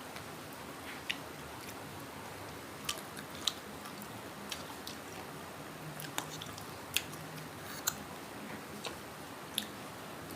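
Close-up chewing of crispy fried pork belly, the crackling skin giving short, sharp crunches about seven times, spread unevenly over a faint steady hiss.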